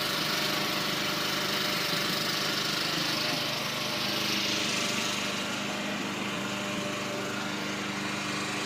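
An engine running steadily at a constant pitch, with a hiss over it.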